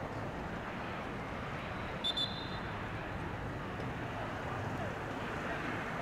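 Referee's whistle, two short sharp blasts about two seconds in, over steady open-field background noise.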